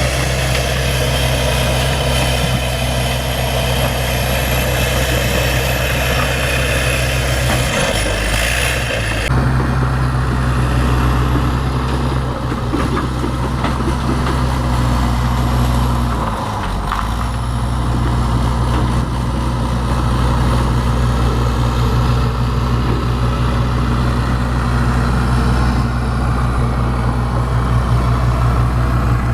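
Bulldozer's diesel engine running steadily under work, its pitch dipping briefly about eight seconds in and again about sixteen seconds in.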